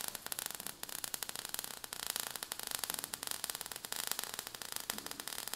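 Quiet sound effect of crackling sparks: a steady hiss dotted with many small irregular crackles.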